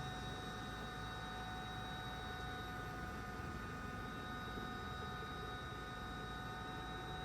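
Helicopter running steadily, heard as a constant drone with a whine of several high steady tones over it.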